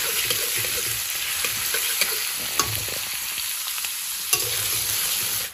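Sliced onions sizzling in hot oil in a metal kadai, frying toward half done. A spatula stirs them, scraping against the pan during the first few seconds.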